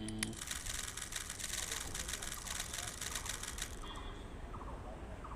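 Rubik's cube being turned quickly, a dense run of plastic clicking that stops abruptly after about three and a half seconds.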